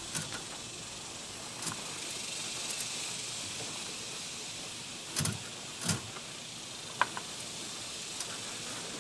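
Rag scrubbing the wet, soapy deck of an aluminum jon boat: a steady hiss, broken by a few soft knocks about five and six seconds in and a sharp click about seven seconds in.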